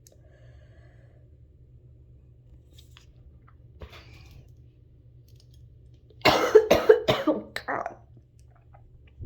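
A person coughing: a quick run of four or five coughs starting about six seconds in and lasting under two seconds.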